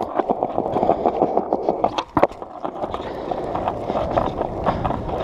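Skateboard rolling over brick paving, a steady rumble with quick clacks as the wheels cross the joints, and one sharp knock about two seconds in.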